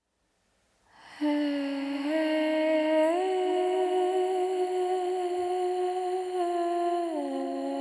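A voice humming a slow, wordless melody in long held notes, beginning about a second in. The pitch steps up twice and comes back down near the end, opening a soft music track.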